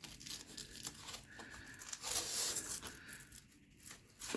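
Faint rustling, scraping and small clicks of the battery safety strap being pulled around the e-trike's frame and battery, with a longer rubbing stretch about two seconds in.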